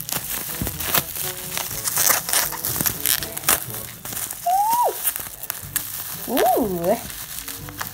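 Plastic bubble wrap crinkling and crackling in quick, irregular bursts as hands pull it apart to unwrap a small plastic toy figure. A voice gives a short 'ooh' near the end, over faint background music.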